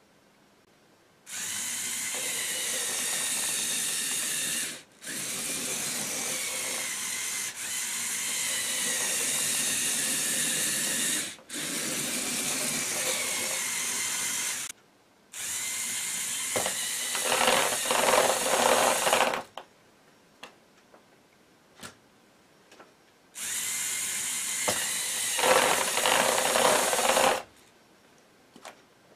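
LEGO EV3 tank robot's electric motors whining as they drive its caterpillar tracks, starting and stopping about five times. A rattling clatter of the tracks and gears joins the later runs.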